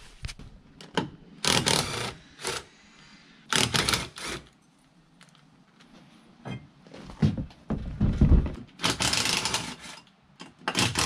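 Clatter and knocks of hand tools and metal parts being handled, in about five short bursts, with a heavier low thump about eight seconds in.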